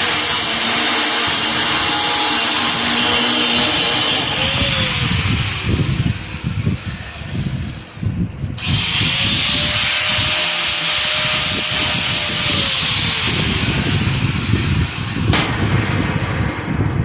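Handheld power tool working on metal, running in long bursts that start and stop sharply, its motor pitch rising as it spins up about halfway through and falling a few seconds later.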